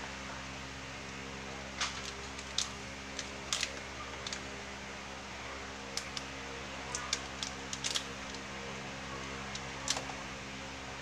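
Bundles of long beans being picked up and handled on a counter: scattered light clicks and rustles, about a dozen, over a steady low electrical hum.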